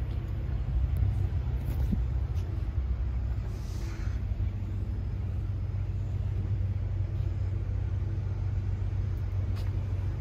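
Excavator diesel engine idling, a steady low rumble, with a brief hiss about four seconds in.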